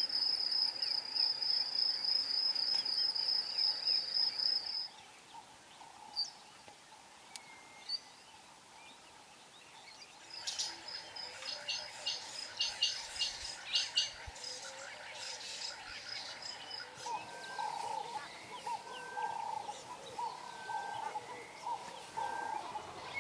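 Natural bush soundscape: a cricket-like insect trills in a steady high pulse for about five seconds, then falls silent. After a quiet stretch with scattered chirps, birds call, first a flurry of rapid high chirps about ten seconds in, then a series of evenly repeated lower notes toward the end.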